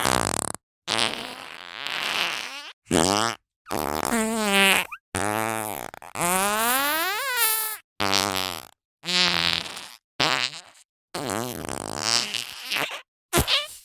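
A run of about a dozen cartoon fart sound effects, one after another with short gaps between them. Some are pitched and slide in pitch, with a long rising one near the middle, while others are noisier and shorter.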